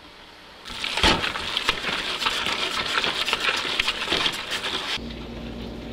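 A spoon stirs browning ground beef in a stainless steel stockpot: crackling and many small metal clinks and scrapes against the pot, with one sharp knock about a second in. It cuts off shortly before the end.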